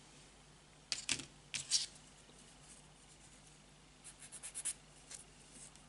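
A few sharp clicks as a small plastic model part and tool are handled, then a quick run of short scratches as a sanding stick is rubbed back and forth on the plastic part.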